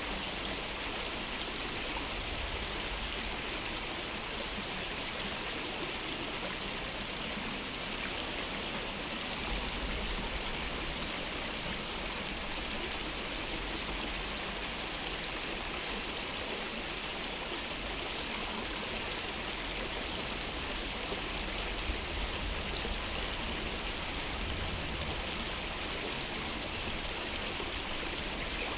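Steady rush of flowing stream water, with a low rumble underneath that swells a little at times.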